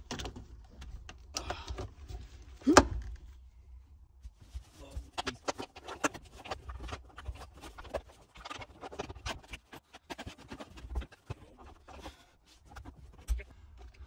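Handling noise as the Scion tC's new shifter cables are fished through the floor tunnel behind the dash: irregular rustling, scraping and small clicks of cable, plastic trim and wiring harness, with a sharper knock about three seconds in.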